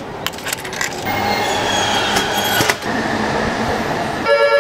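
Coins and a can clattering in a drinks vending machine, with the steady noise of a train on the platform. A strong steady pitched tone starts near the end.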